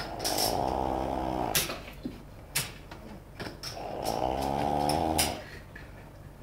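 A man snoring loudly in his sleep: two long pitched snores about four seconds apart, each lasting over a second, with a few sharp clicks in between.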